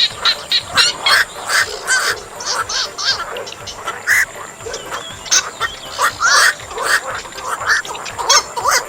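Black-crowned night herons giving many short, harsh croaking calls in a dense, overlapping chorus.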